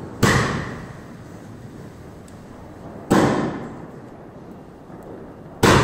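Aerial fireworks bursting overhead: three sharp bangs about two and a half to three seconds apart, each dying away over about a second.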